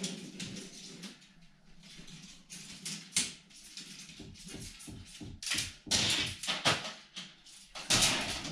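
MSR Advance Pro 2 tent being pitched by hand: its long poles knocking and clicking as they are handled and bent, with fabric rustling. A run of light clicks and taps, with louder rustling bursts about halfway through and near the end.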